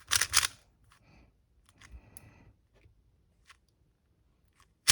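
Plastic Moyu RS3 2020 speed cube being turned by hand: a fast clatter of layer-turning clicks for about half a second, then scattered quieter clicks, and one sharp click near the end.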